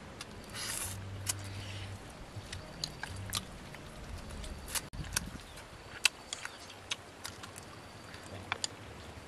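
Close-up eating sounds of people chewing food taken by hand: lip-smacking and chewing heard as irregular short, sharp clicks.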